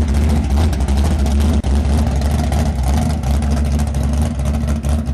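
Loud, deep rumble of a drag-prepped 1960s sedan's V8 engine, running in rapid uneven pulses as the car rolls slowly past and away.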